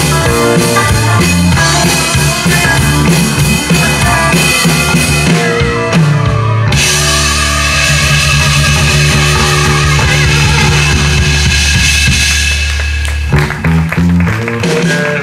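Live psychedelic prog-rock band (drum kit, electric guitar, bass guitar, keyboards) playing the closing bars of a long piece. Busy playing gives way about halfway through to one long sustained chord with ringing cymbals, then a hit and a few short notes near the end.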